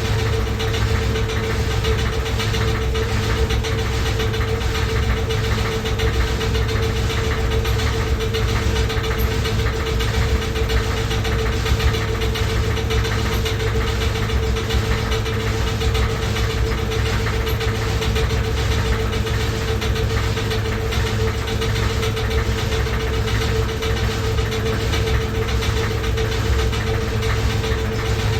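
Washing machine running loudly, with a steady hum over a low rumble and a regular knocking.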